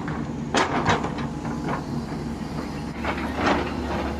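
A vehicle's steady low running hum, with a few sharp clacks about half a second in and again past three seconds in.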